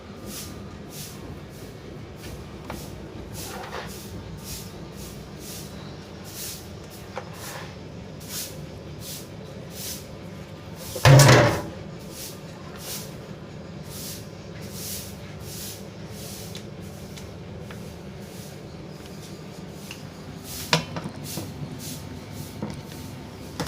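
Handling of an electric fan during a repair: a run of faint ticks, a little under two a second, over a steady low hum, with one loud knock about eleven seconds in and a sharp click near the end.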